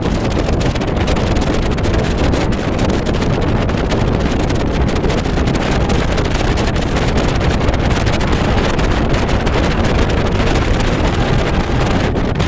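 Strong wind buffeting the microphone: a loud, steady rush of noise heaviest in the low end.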